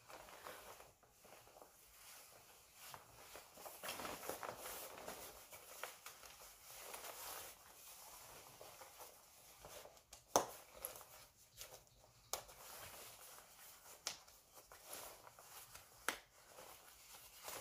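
Quiet rustling of a padded winter jacket's fabric as it is put on and fastened, with a few sharp clicks from its fasteners, the loudest about ten seconds in.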